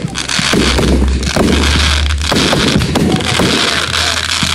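Fireworks going off in the air: an irregular run of sharp bangs and crackles over a continuous low rumble.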